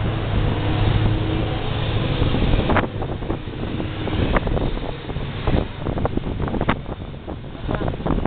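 Wind buffeting the microphone over the steady drone of a boat motor, changing abruptly about three seconds in to a gustier, crackling rush of wind on a moving boat.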